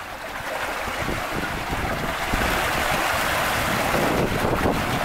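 Seawater rushing and foaming through a narrow gap between rocks, growing louder over the first two seconds and then holding steady.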